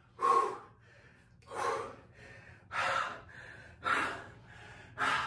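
A man gasping heavily into a handheld microphone: five loud, ragged breaths about a second apart, with softer breaths between them.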